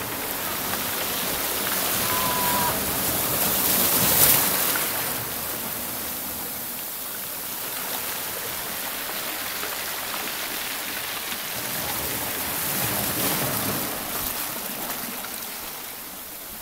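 Sea surf washing and foaming over rocks in a steady rush, swelling louder about four seconds in and again near thirteen seconds.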